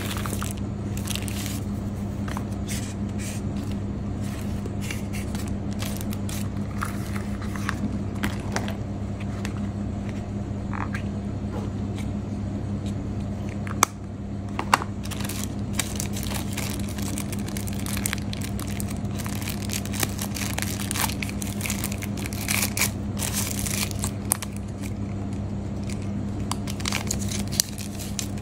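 Hands handling headphone packaging: paper and plastic rustling and crinkling, light scrapes and scattered clicks, with two sharper clicks about halfway through. A steady low hum runs underneath.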